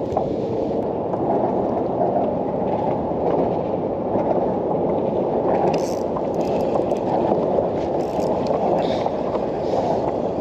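Steady wash of choppy water around a kayak hull, with faint ticks of a spinning reel being handled about halfway through.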